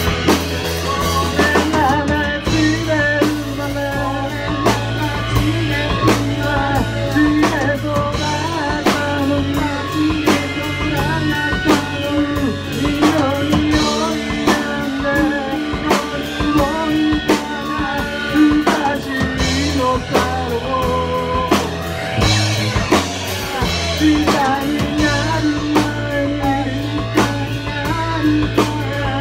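Live rock band playing a song: electric guitar, electric bass and drum kit, with a sung lead vocal.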